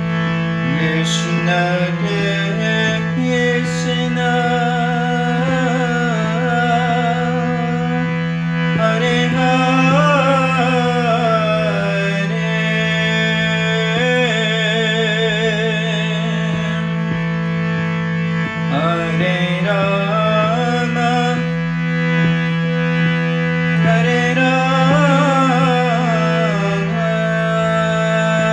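Background music: a steady low drone with a wavering melody line over it.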